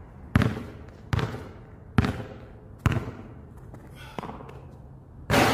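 Basketball dribbled on a concrete court: four bounces a little under a second apart, each with a short ring after it. A softer knock follows about four seconds in, and a loud burst of noise begins near the end.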